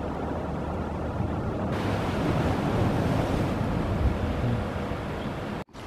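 Sea waves and wind buffeting the microphone, a steady rushing noise that brightens a little about two seconds in and cuts off abruptly near the end.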